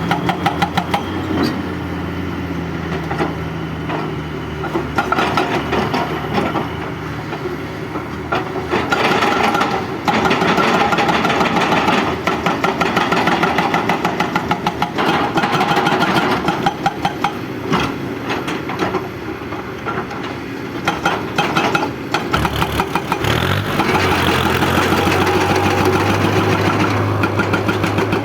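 Excavator's diesel engine running with a fast, even pulse. It revs up about nine seconds in, eases off around twenty-two seconds, and revs up again near the end.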